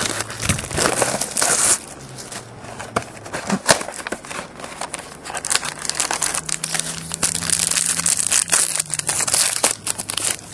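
Trading-card pack wrapper being torn open and crumpled by hand: an irregular run of crinkling and crackling rustles that stops abruptly near the end.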